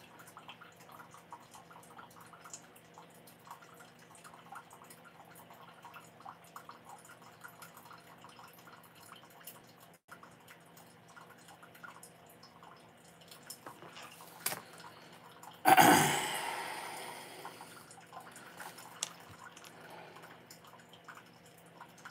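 Coffee maker brewing: faint dripping and ticking, with a sudden loud hissing gurgle about two-thirds of the way through that fades over a couple of seconds.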